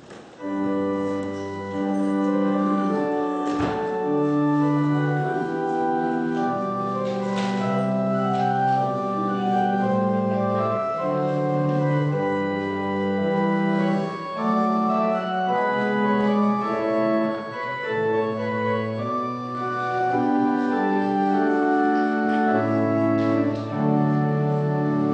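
Organ playing slow, sustained chords that move from one held chord to the next; the music begins about half a second in.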